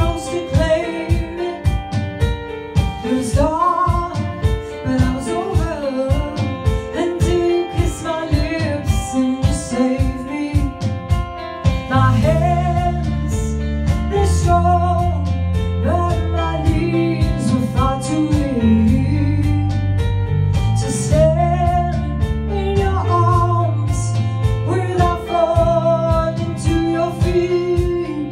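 A woman sings a pop ballad into a handheld microphone over a recorded backing track with a steady beat. A heavy bass line comes in about halfway through.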